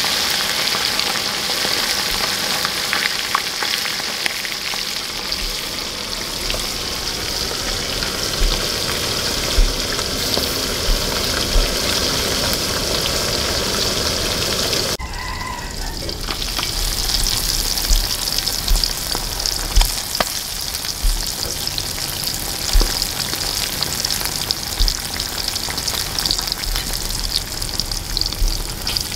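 Pieces of salted sultan fish deep-frying in a wok of hot oil: a steady sizzling hiss with scattered crackles and pops. The sound drops out briefly about halfway through.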